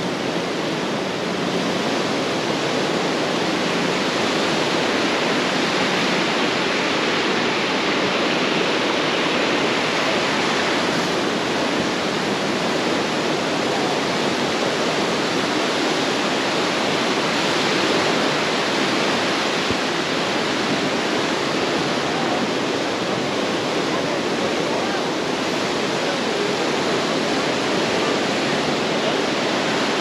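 Surf washing onto a sandy beach: a steady rush of breaking waves with no distinct strokes.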